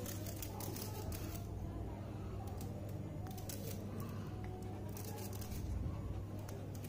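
Lhasa Apso's claws clicking and scuffing on a marble floor as it moves about, over a steady low hum; the clicks come mostly in the first second and a half and again about five seconds in. No barking.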